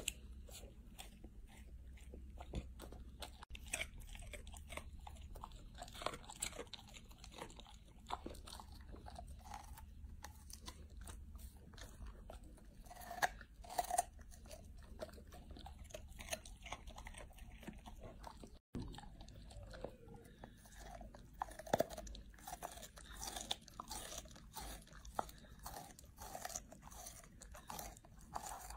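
A golden retriever chewing and crunching its food, first a fried dough twist and then a head of raw broccoli: a dense run of irregular crisp bites and crunches, with a brief break about two-thirds of the way in.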